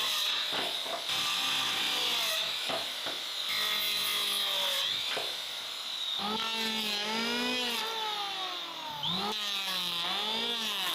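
A power tool working wooden boards. First comes a rough rasping noise, then from about halfway a pitched motor whine that rises and falls over and over as the load changes.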